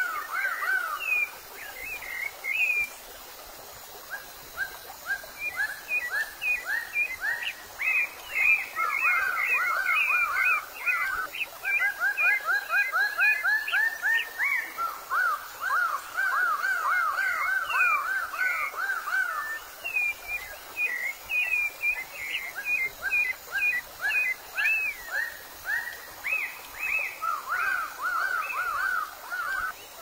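Birds calling: bouts of rapid, repeated rising notes, about five a second, mixed with scattered higher chirps.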